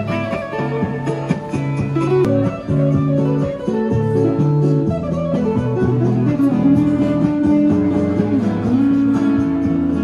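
Acoustic guitar music, live-played: plucked and strummed notes over a moving bass line, going on without a break.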